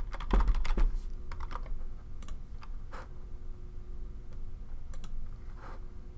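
Computer keyboard being typed on, a password entered at a login prompt: a quick run of key clicks in the first second, then a few scattered single clicks.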